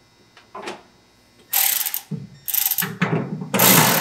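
Cordless ratchet running in two short bursts, then running steadily from about three and a half seconds in, as it drives in the bolts holding a dual-reservoir brake master cylinder to its mounting plate. A few faint clicks come in the first second.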